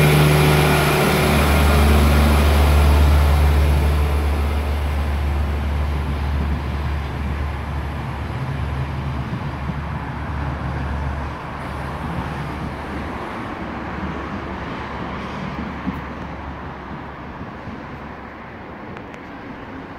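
Series 2900 narrow-gauge diesel multiple unit pulling away from the platform, its diesel engine running loud and low at first, then fading steadily as the train draws off into the distance.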